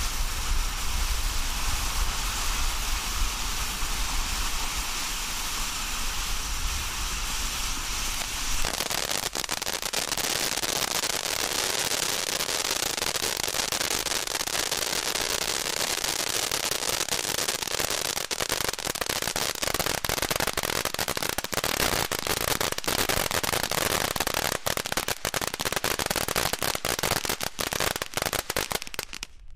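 An 'Eye Poppin' safe-and-sane ground fountain firework hissing as it sprays sparks. About nine seconds in, it turns into dense, continuous crackling, its big crackle finish, which thins out and stops at the very end.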